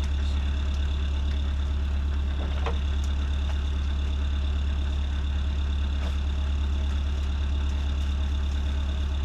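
Motor cruiser's engine running steadily at slow cruising speed, an even low drone.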